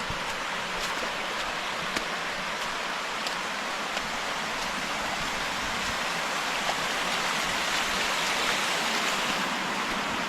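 Creek water rushing and splashing steadily over rock, a little louder near the end, with a few faint clicks.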